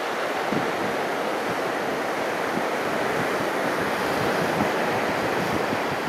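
Ocean surf washing steadily against a rocky shore, with wind buffeting the microphone in brief low thumps.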